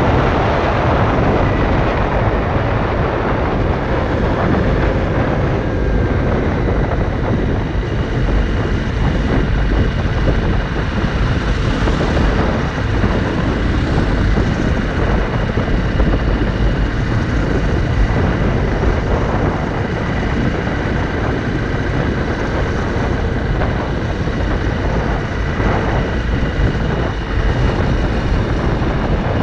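Honda CRF motorcycle being ridden at a steady pace, its engine running under heavy wind rush on the microphone.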